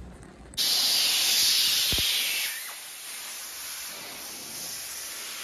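Compressed air hissing out of an air nozzle, blowing water beads off a waxed car bonnet to dry it without touching the paint. It comes on suddenly about half a second in, then drops to a softer steady hiss about two and a half seconds in.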